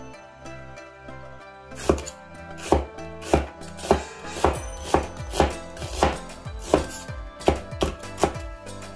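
Kitchen knife slicing a half onion into rings on a wooden cutting board: about a dozen even strokes, roughly one and a half a second, starting about two seconds in, each ending in a knock of the blade on the board.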